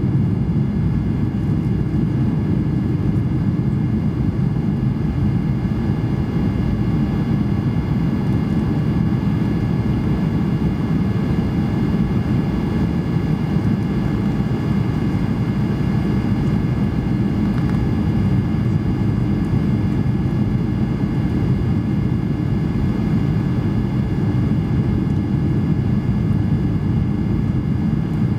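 Steady cabin noise inside a Boeing 737-800 airliner on final approach with its flaps extended: a low, even rumble of engines and rushing air, with several faint steady high-pitched tones over it.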